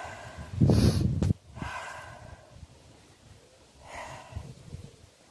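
A person's breathing close to the microphone: one loud, noisy breath lasting under a second just after the start, then two softer breaths.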